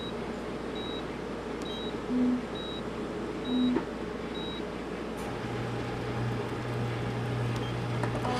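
Hospital equipment beeping, short high electronic beeps a little under one a second, with two brief low buzzes about two and three and a half seconds in. About five seconds in the beeps give way to the steady low hum of a Philips PET-CT scanner running.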